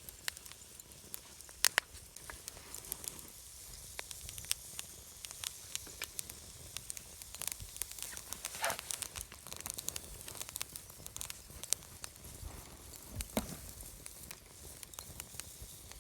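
Wood fire crackling, with irregular sharp pops and snaps over a soft steady hiss. There is a brief louder hiss just under nine seconds in.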